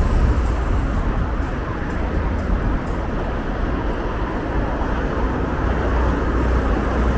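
Steady city road traffic noise with a strong low rumble underneath.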